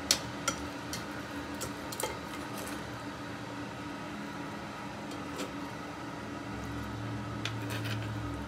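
Metal tongs clicking and scraping against a nonstick frying pan and a ceramic plate while stir-fried green beans and carrots are served. There are several sharp clicks in the first couple of seconds and a few more later on, over a steady low hum.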